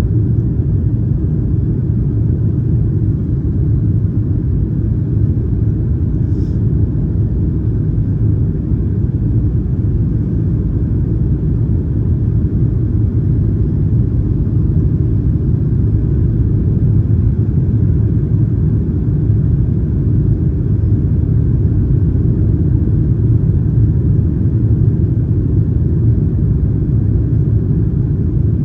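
Cabin noise inside a Boeing 737-900ER airliner in flight: a steady low rumble of its CFM56-7B turbofan engines and airflow, heard from an economy window seat behind the wing.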